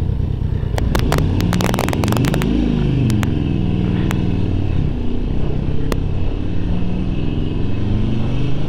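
2009 Harley-Davidson Sportster 1200 Low's air-cooled V-twin pulling away from a stop, its pitch climbing as it accelerates and dropping back at each upshift. A quick run of sharp clicks comes one to two seconds in, with single clicks later.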